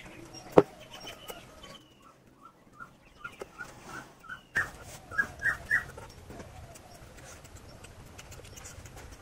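Close-miked eating of soft bread rolls and bhaji: chewing and wet mouth smacks. There is a sharp click about half a second in, and a run of short high squeaks in the middle that grow louder.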